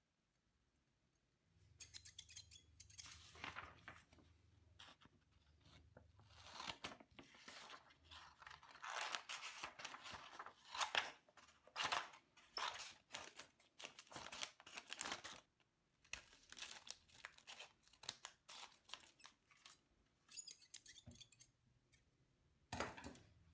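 Rusty, roughly 80-year-old scissors cutting through paper: a long run of irregular snips and crisp paper rasps with short pauses, starting a moment in. The old blades are still sharp and cut cleanly.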